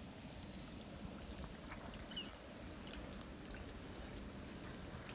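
Quiet outdoor ambience: a steady low rumble, with one faint short high chirp about two seconds in.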